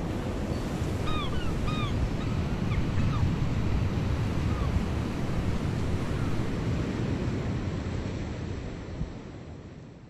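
Ocean surf breaking and washing up a beach in a steady rush, with a few short bird calls about one to three seconds in; it fades out near the end.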